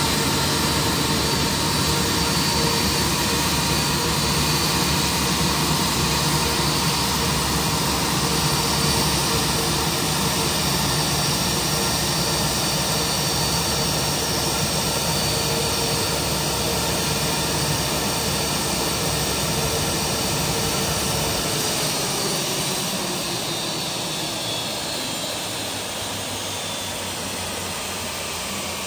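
Steady jet turbine whine and rumble on an airport ramp, with several high tones held over the noise. About 22 seconds in it eases off a little and some of its tones slide lower.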